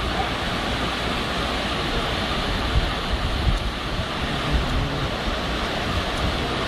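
Steady rush of fast-flowing floodwater pouring along a street and around stranded vehicles, with low bumps of wind on the microphone.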